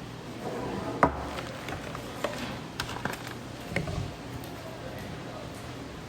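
Slow hiccups: a sharp hic about a second in and another just before four seconds, with a few small clicks and knocks between them.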